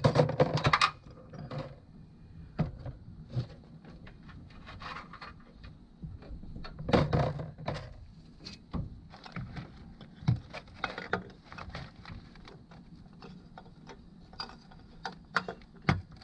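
Scattered metal clinks, taps and scrapes of bolts and parts being handled while a water pump and its gasket are fitted to an engine, with a louder clatter about seven seconds in.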